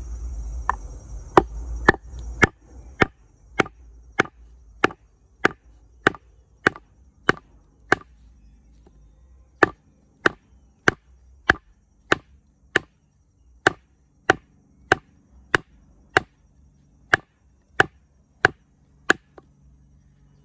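Batoning: a baton striking the spine of an LT Wright Forest Trail knife in A2 steel again and again, driving the blade down into a log to split it. About thirty sharp knocks come at an even pace of a little under two a second, with a brief pause a little before halfway.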